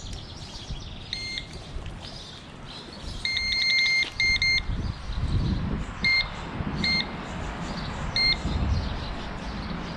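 Electronic carp bite alarm beeping with a fish on the line: a few single beeps, then a fast run of beeps about three seconds in, then single beeps every second or so. A low rumbling noise comes and goes under the second half.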